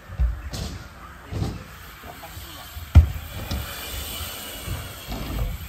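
BMX bike riding on concrete skatepark ramps and flat ground: tyres rolling with dull thumps, and a sharp knock about three seconds in.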